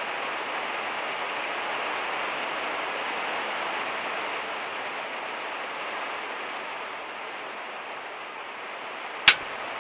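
Heavy rain drumming steadily on a camper van's metal roof and windows. A single sharp click cuts through near the end.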